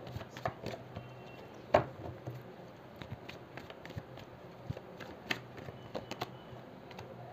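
Tarot cards being shuffled and handled by hand: scattered light clicks and taps of the cards, with one sharper snap just under two seconds in.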